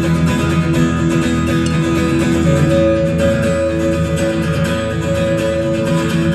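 Acoustic guitar playing an instrumental passage of a folk song, chords ringing on steadily.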